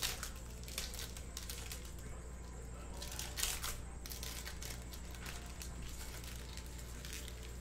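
Trading-card pack wrappers being torn open and crinkled by hand: a string of short rustling tears, the loudest about three and a half seconds in.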